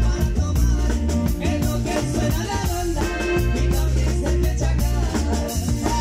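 Live norteño band music: drum kit, electric bass, acoustic guitar and button accordion playing together at a steady beat, with a man singing at the microphone.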